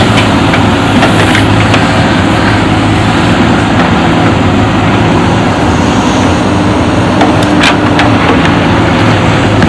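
JCB backhoe loader's diesel engine running steadily under load, with a couple of sharp knocks about seven and a half seconds in.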